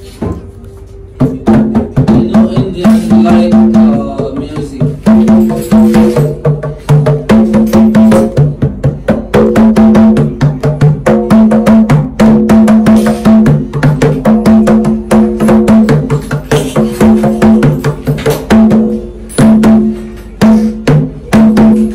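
Hand drumming on two small rope-tensioned barrel drums: fast, loud strokes in a steady rhythm that alternate between a higher-pitched drum and a lower one. It starts about a second in.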